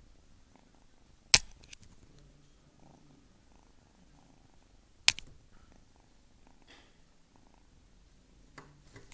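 Kitten purring faintly and steadily, broken by two sharp clicks, one about a second and a half in and one about five seconds in.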